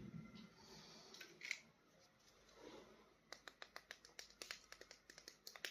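Faint handling noise, then from about three seconds in a quick run of light clicks, five or six a second.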